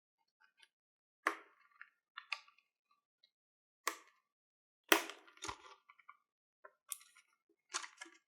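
Close-up handling of a boxed Yale luggage padlock: a string of separate taps, clicks and crinkles of packaging, about eight in all, with the loudest about five seconds in.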